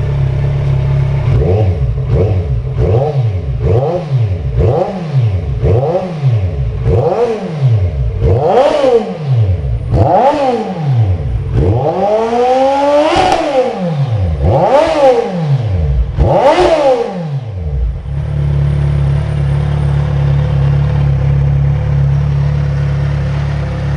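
Kawasaki Z1000 inline-four engine through a Hurricane aftermarket sport exhaust, idling and then revved in about a dozen quick throttle blips that climb higher and last longer each time, before dropping back to a steady idle.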